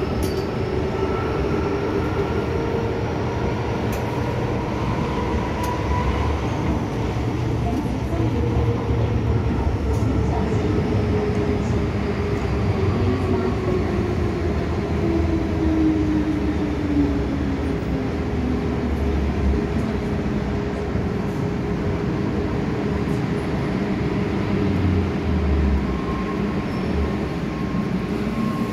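MTR M-Train electric multiple unit heard from inside the car as it runs along an underground platform: a steady rumble of wheels on rail with a motor whine that falls in pitch through the middle as the train slows.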